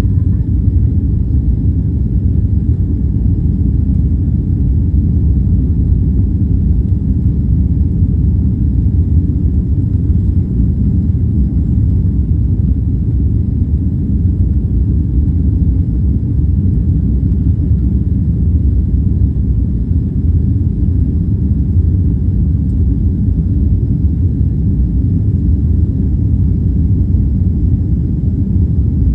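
Steady low rumble of a jet airliner's engines and airflow, heard inside the passenger cabin.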